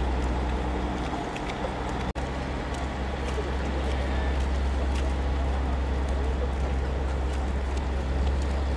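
Steady outdoor background noise with a strong low hum, broken by a very brief dropout about two seconds in.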